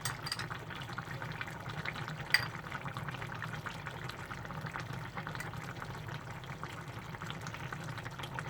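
Steady watery hiss with a fine crackle, as of water running or a pot bubbling, over a low steady hum. One sharp click about two and a half seconds in.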